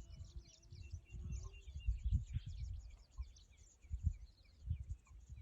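Many birds chirping and calling at once, a dense chorus of short high notes, with irregular low thumps and rumbles underneath.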